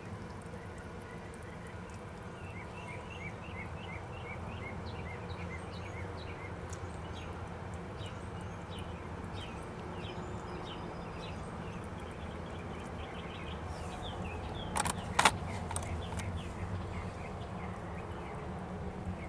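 Birds chirping over a steady low hum. Two sharp clicks come close together about fifteen seconds in.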